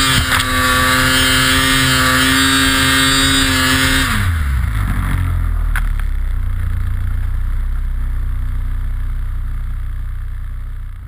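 Snowmobile engine running at steady high revs, then dropping sharply about four seconds in to a low idling rumble, which fades out near the end.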